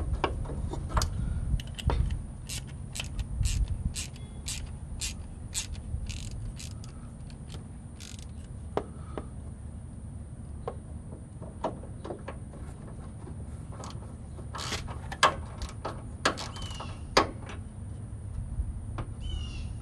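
Scattered sharp plastic clicks and rattles of a wiring-harness connector being handled and fitted to a replacement airbag sensor, over a steady low rumble. A few short high chirps come near the end.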